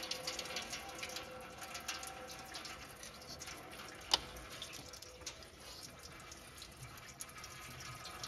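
Faint trickling and dripping of engine coolant from around the loosened water pump, with scattered light metallic ticks from the wrench and one sharper click about four seconds in.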